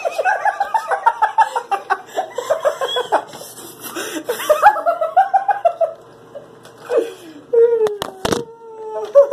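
A boy laughing hard in quick, broken bursts for about six seconds. Near the end, a drawn-out, slightly falling vocal cry, with two sharp knocks in the middle of it.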